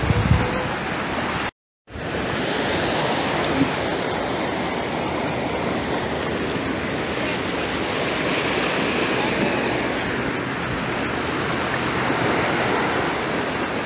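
Steady wash of ocean surf, an even rushing noise, cut by a brief total dropout about a second and a half in.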